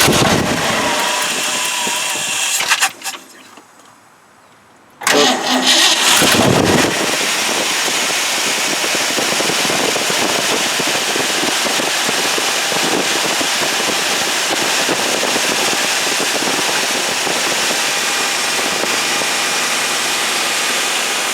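1979 Ford F-250 engine cranking briefly and stopping, then cranking again about five seconds in and catching, after which it runs steadily now that the ignition has spark again.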